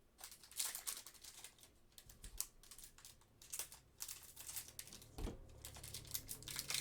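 Trading cards being handled and flicked through, a run of light, irregular clicks and swishes of card stock, with a soft thump about five seconds in.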